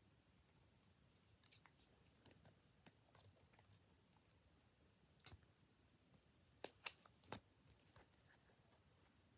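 Faint clicks, crinkles and a few sharper snaps of a plastic-wrapped single CD being picked up and handled, the loudest in the second half.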